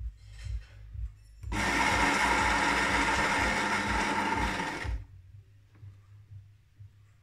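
Saeco Intelia's built-in ceramic burr coffee grinder running in service test mode. It starts about one and a half seconds in, runs steadily for about three and a half seconds, and cuts off suddenly. A soft, low thumping sits underneath.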